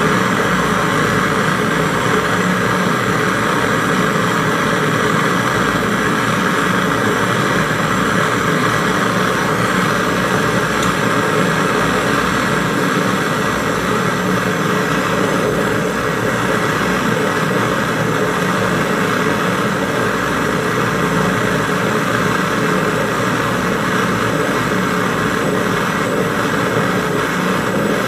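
Handheld gas welding torch fed from a gas canister, its flame burning steadily on a copper-to-iron refrigerator compressor pipe joint, heating it for brazing.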